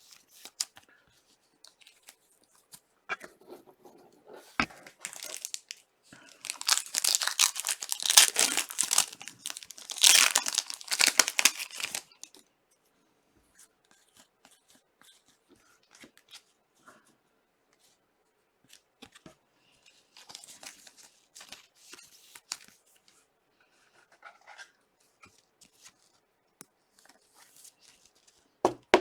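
Trading card packs being torn open, the wrappers tearing and crinkling in two loud stretches about seven and ten seconds in, then faint rustling and light clicks as the cards are handled.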